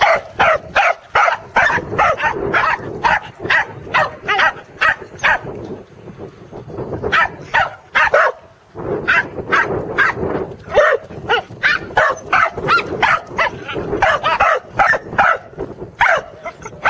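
Pembroke Welsh Corgi barking at sheep it is herding: rapid, repeated sharp barks, about three a second, with a short break midway.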